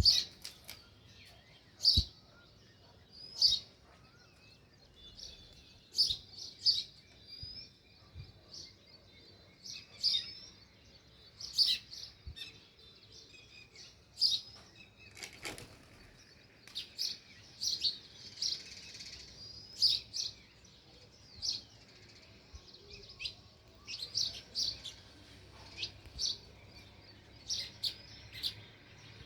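House sparrows chirping: short, sharp chirps repeated irregularly, roughly one every second or two, some in quick pairs.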